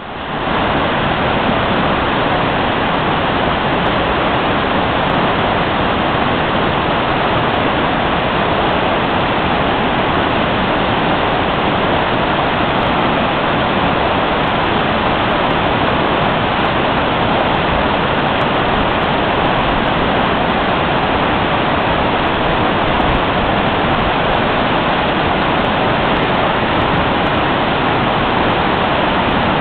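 A debris flow of muddy floodwater carrying boulders and logs, rushing past in a steady, loud, unbroken roar of churning water.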